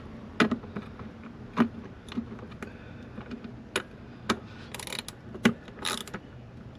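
Metal hand tools and 10 mm bolts clicking and clinking while engine cover bolts are refitted, with two short rasping bursts about five and six seconds in.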